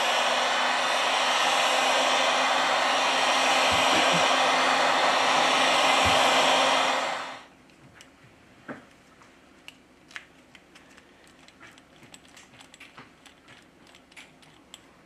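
Heat gun blowing steadily, switched off about seven seconds in, followed by scattered light clicks and taps.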